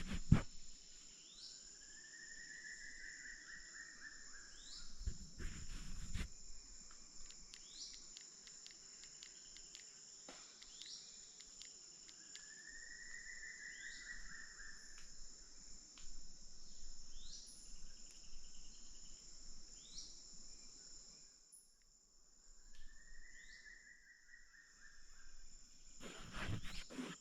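Rainforest dawn chorus: a steady, high-pitched buzz of insects, over which a bird gives an arched, slurred call three times, about ten seconds apart. Short rising chirps from another bird repeat every couple of seconds.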